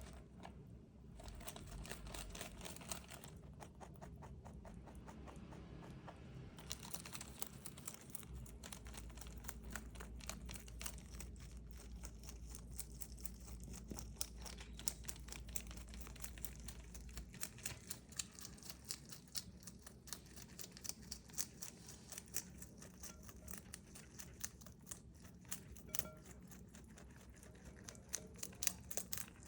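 A rabbit chewing crisp bok choy: a fast, continuous run of small crunching bites.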